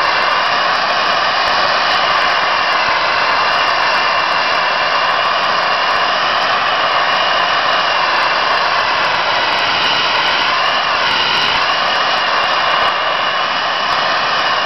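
Abrasive sandblaster nozzle blasting a locomotive cab's side, stripping its paint: a loud, steady hiss with faint whistling overtones whose pitch dips briefly about two-thirds of the way through.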